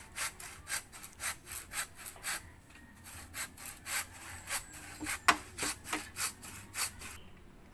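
Hand saw cutting through an upright bamboo post in quick back-and-forth strokes, about four a second. The strokes weaken briefly about two and a half seconds in, pick up again, and stop near the end.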